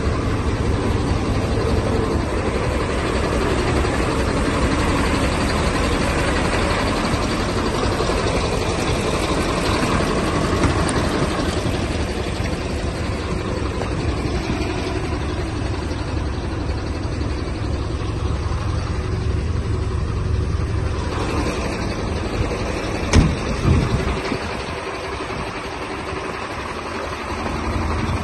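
MAN KAT 6x6 army truck's V8 diesel idling with a steady low rumble. A single sharp knock comes about five seconds before the end, after which the rumble is quieter for a few seconds.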